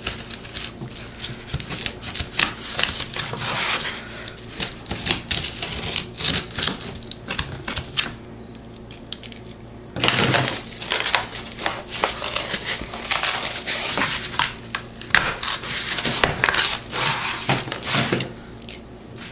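Craft knife blade cutting through thick corrugated cardboard in short rasping, crackling strokes, with a quieter pause about halfway and then a sharp, louder crunch.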